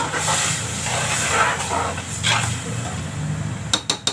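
Boiled dal poured into a hot aluminium pressure-cooker pot of frying vegetables, hissing and sizzling steadily. A few sharp clinks of the bowl against the pot's rim come near the end.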